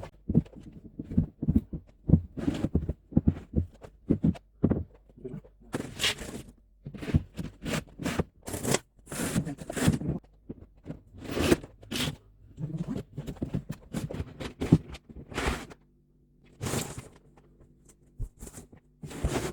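Workshop handling noise while a timber cart's front is fitted: a long irregular run of sharp knocks, clicks and scrapes of wood, screws and tools being handled.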